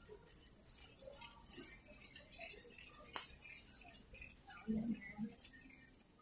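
Wire shopping cart rattling as it is pushed along a tiled store floor, with scattered small clicks and a sharp tick about three seconds in.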